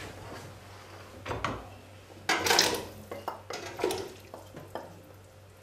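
Cut vegetables tipped from a plate into a stainless steel stockpot of broth: a few clinks of the plate against the pot and soft plops, the loudest about halfway through.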